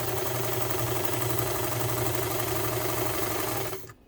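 Singer 185K sewing machine running flat out on test stitches: a steady motor hum with a rapid, even clatter of needle strokes that stops abruptly just before the end.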